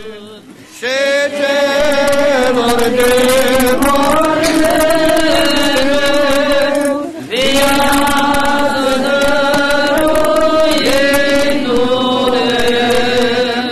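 Orthodox church chant: voices singing a slow Easter hymn in two long phrases of held notes, with a brief break about seven seconds in.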